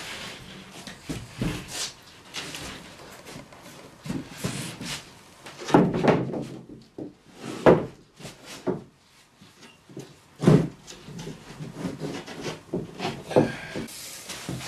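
Large plywood sheet being handled and laid down flat onto wooden battens on the floor: a run of wooden knocks, thumps and scraping, with the loudest thump about ten and a half seconds in.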